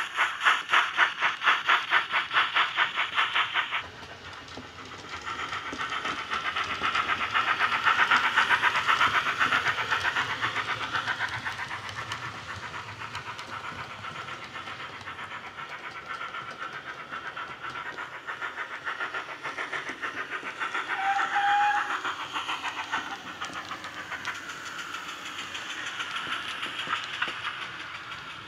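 Digital steam sound from a Loksound micro decoder in a Hornby Large Prairie model tank engine, played through a small speaker: an even, rapid chuff of exhaust beats. The beats are loud at first and turn much softer about four seconds in. A short tone sounds partway through.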